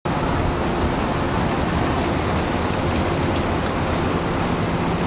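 Steady city street traffic noise: a continuous rumble and hiss of vehicles.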